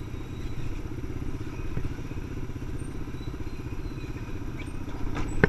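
ATV engine running steadily at low trail speed, with fast even firing pulses. A couple of sharp knocks come near the end, the loudest just before it ends.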